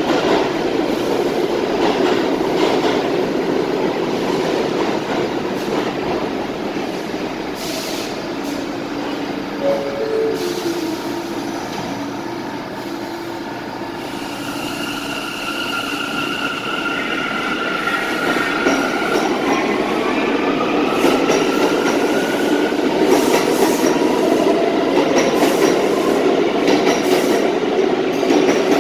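R179 subway train standing in the station, then pulling out. Its traction motors give a whine that rises in pitch as it accelerates, and the wheel and rail noise grows louder toward the end.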